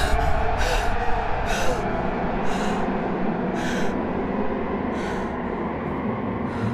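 A frightened woman's heavy breathing, one breath about every second and coming further apart, over a low rumbling horror drone that slowly dies down.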